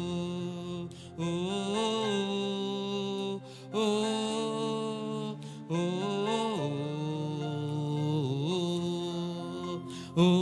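Worship singing: a singer holding long wordless vowels in phrases of a few seconds, sliding up and down in pitch, over steady sustained backing music.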